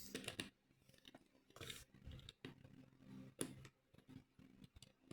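Faint, scattered clicks of plastic LEGO pieces being handled and pressed together.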